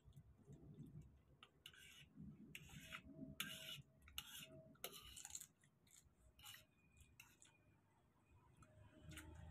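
Faint eating sounds: chewing and wet smacking on garlic butter prawns and spaghetti, with a run of irregular short clicks.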